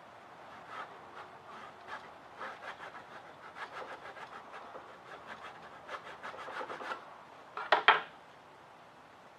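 Sandpaper rubbing back and forth in a narrow groove cut into a wooden dowel, in short irregular strokes, widening the groove. Near the end come two sharp knocks, the loudest sounds.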